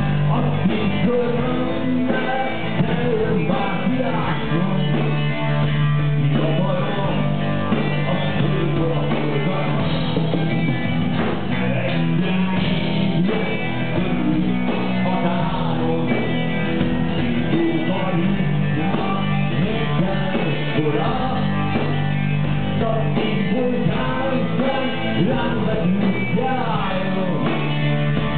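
Live rock band playing: electric guitars, bass, keyboard and drums, with a man singing the lead at the microphone.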